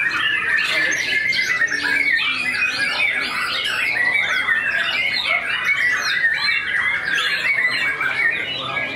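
White-rumped shama (murai batu) singing non-stop: a dense stream of quick chirps, whistles and warbles, overlapping with other contest shamas singing around it.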